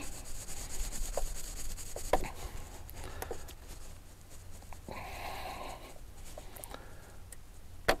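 Gloved hands rubbing and working the plastic injector return manifold off the top of a diesel engine's fuel injectors, with a few light clicks as the fittings are handled and a stretch of rubbing about five seconds in.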